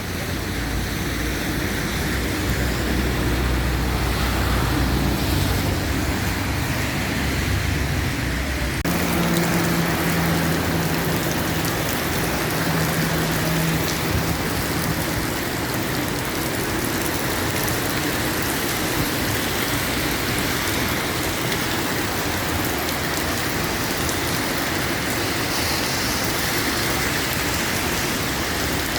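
Steady rain falling, a constant hiss of drops on surfaces, with a low vehicle engine rumble underneath for roughly the first third.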